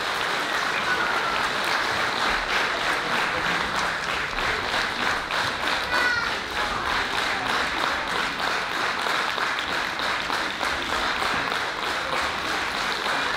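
Audience applauding, many hands clapping steadily at an even level.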